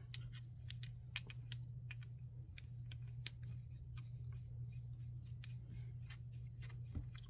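Light, irregular clicks and small scrapes of a Lufkin No. 900 planer gauge, a small steel machinist's tool, being handled and adjusted, over a steady low hum.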